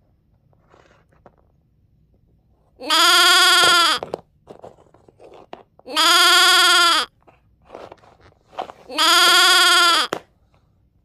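A recorded animal bleat sound effect, the same call played three times about three seconds apart, each lasting about a second. Faint clicks and taps from the plastic toy figurines on the wooden floor fall between the bleats.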